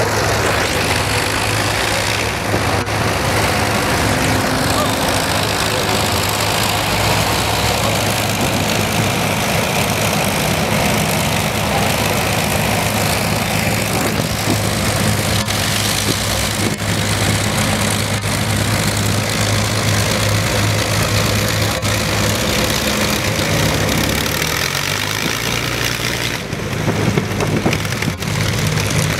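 Four Rolls-Royce Merlin V12 engines of an Avro Lancaster running at taxi power, a loud steady drone as the bomber taxis past. Near the end the engine note drops briefly, then picks up again.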